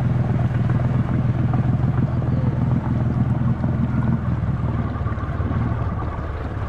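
ATV engine running steadily at low speed as the quad wades through deep floodwater. A faint high whine comes in about four seconds in.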